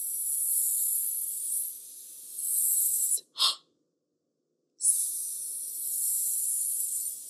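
A woman imitating a snake with a drawn-out "ssss" hiss, twice, each lasting about three seconds, with a short break between.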